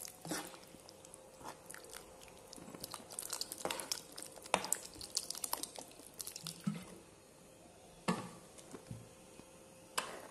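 Steel spoon stirring thick prawn curry gravy in a kadai: irregular clicks and scrapes of the spoon against the pan, with soft wet squelching of the gravy.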